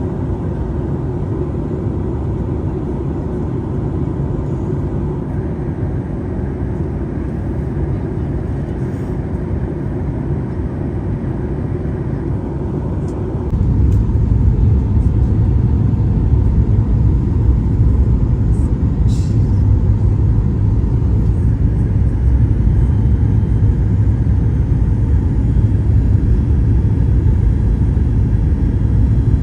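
Steady aircraft engine drone heard inside the cabin. About halfway through it steps up suddenly to a louder, deeper rumble and holds there.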